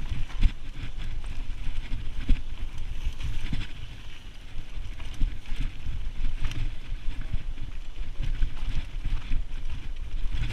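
Wind buffeting the microphone: an uneven low rumble that swells and dips, with a steady hiss and scattered short knocks and rustles.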